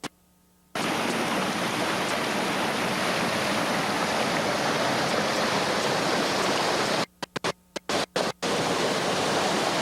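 Rushing whitewater of a river rapid, a steady hiss and roar, broken by brief cuts to silence at the very start and several times around seven to eight seconds in.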